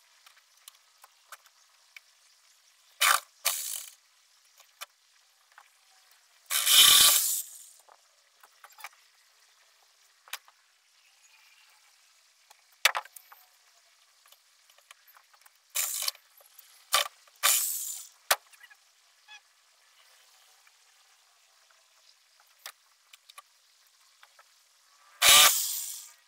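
Short, scattered scrapes, knocks and rattles from hands and tools working among the wiring and panels of a boat's battery compartment, with the loudest knock about seven seconds in and another loud scrape near the end.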